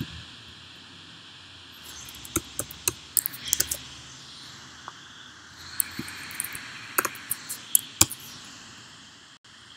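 Computer keyboard keys clicking as code is typed, in two short bursts of keystrokes, about two seconds in and again about six seconds in, over a faint steady hiss.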